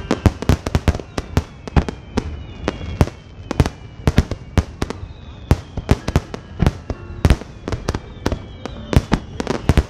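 Rapid barrage of aerial firework shells bursting, loud sharp booms and cracks following one another several times a second over a continuous rumble.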